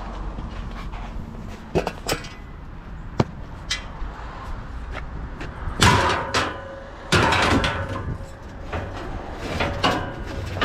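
Knocks and clattering of curbside junk being handled and moved. A few sharp knocks come in the first four seconds, then longer clattering bangs about six and seven seconds in, over a low steady rumble.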